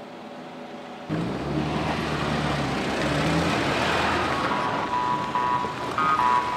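Lada car driving past close by: its engine note and tyre noise start suddenly about a second in and swell to a peak near the middle of the pass. In the last couple of seconds a high electronic melody comes in over it.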